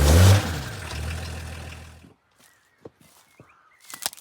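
Volkswagen LT truck's engine revving briefly, then dropping back and cutting off about two seconds in, while the truck, stuck in soft ground, fails to move. After that, only faint clicks.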